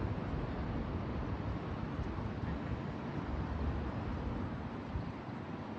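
Steady outdoor background noise: a low, fluctuating rumble with a fainter hiss above, no distinct events.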